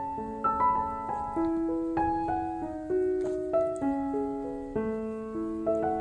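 Soft, slow piano music: a gentle melody of sustained notes that ring and fade, a new note every half second or so.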